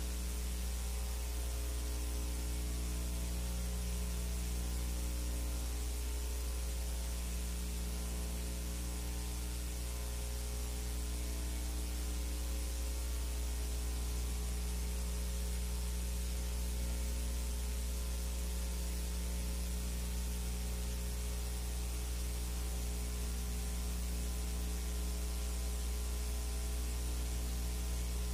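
Steady electrical hum with a ladder of overtones under a constant hiss, and no other sound: the noise floor added to a silent film's transfer, which has no soundtrack of its own.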